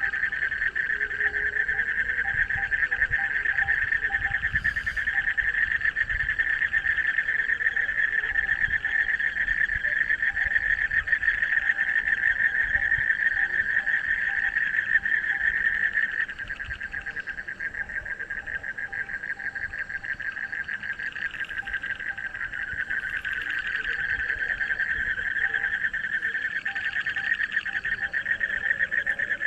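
A dense chorus of frogs croaking in fast, continuous pulses. It drops somewhat in level about halfway through and builds back up near the end.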